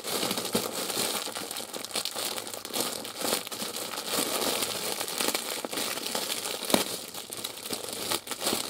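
Thin clear plastic wrapping crinkling and crackling continuously as hands squeeze and pull at it to unwrap a plush frog puppet, with one sharper snap about seven seconds in.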